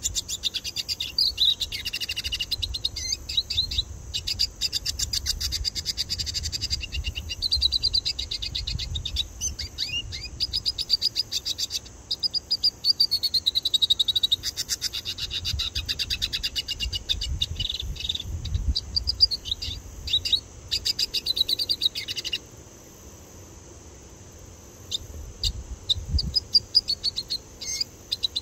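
A red siskin (Venezuelan cardenalito) singing a long, fast song of rapid twitters, trills and chirps. It stops about three-quarters of the way through and starts again near the end.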